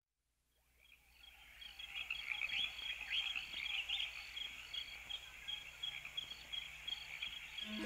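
Birds and insects chirping: a chorus of high twitters over a short, high chirp that repeats at a steady pace, fading in over the first two seconds.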